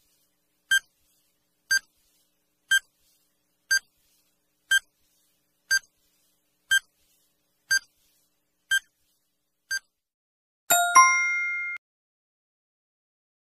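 Quiz countdown timer sound effect: ten short beeps, one a second, then a louder chime of several tones ringing for about a second to mark time up.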